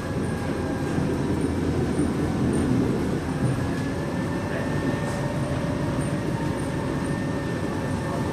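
Cabin sound of a 1976 city bus driving slowly: its engine runs steadily under the floor with body and window rattle, and a faint high whine is held throughout.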